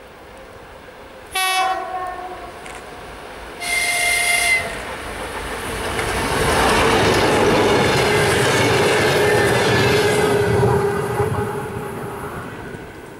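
2M62U two-section diesel locomotive sounds its horn twice, a short blast and then a longer one. It then passes close by at speed with a loud diesel engine rumble and wheel noise on the rails, which fade away near the end.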